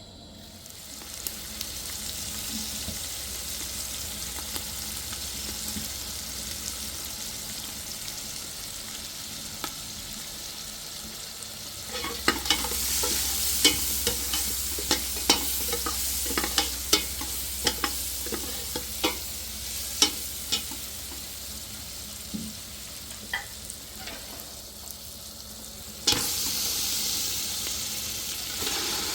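Steady hiss of falling rain, with a run of sharp clicks and knocks through the middle; the sound changes abruptly twice, as if at cuts.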